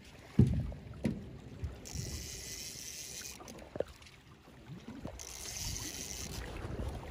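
A snagged paddlefish splashing and thrashing at the water's surface. There is a sharp low thump about half a second in, a few smaller ones after it, and two short stretches of a high hiss.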